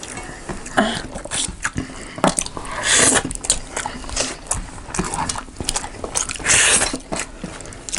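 Close-miked eating sounds: chewing and crunching, with many small clicks. Two louder noisy bursts come about three seconds in and again near seven seconds.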